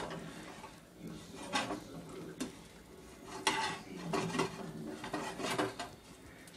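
Spatula scraping and clacking against a frying pan as bread cubes roasting in ghee are stirred and tossed: about half a dozen separate strokes, irregularly spaced.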